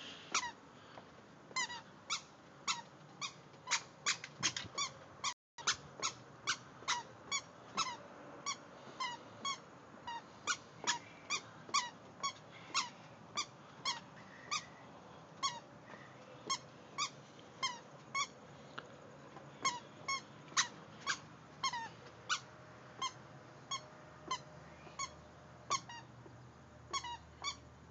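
A toddler's squeaky shoes squeaking with each step as she walks, about two short squeaks a second in a steady walking rhythm.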